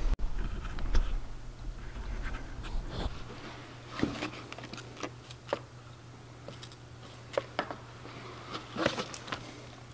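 Scattered light clicks, knocks and brief hissy spurts of handling in a workshop, over a low steady hum.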